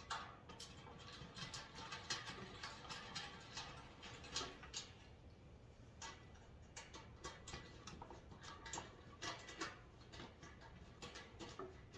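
Faint, irregular light clicks and taps of a hand screwdriver and small metal hardware being handled.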